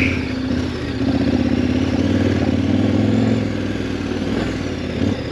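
KTM 1190 Adventure's V-twin engine running at low speed as the motorcycle rides a rough dirt trail. The engine note is steady and grows a little louder after about a second, then eases back near the end.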